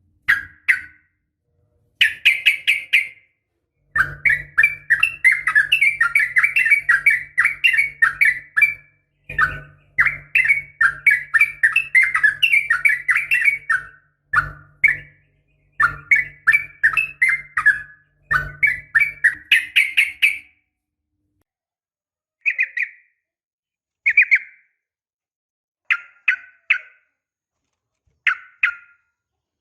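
Yellow-vented bulbul (trucukan) singing in fast, chattering runs of notes. Long unbroken bouts fill the first two-thirds, then it breaks into short bursts of a few notes with gaps between them.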